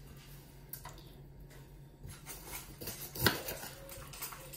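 Kitchen knife cutting through a red bell pepper on a plastic cutting board, with small crunching and scraping sounds and one sharp knock of the blade striking the board a little over three seconds in.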